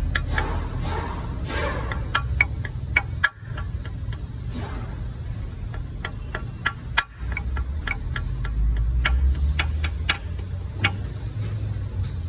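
Hand socket ratchet clicking in quick runs as the bolts of the engine's rear main seal housing are tightened, over a steady low hum.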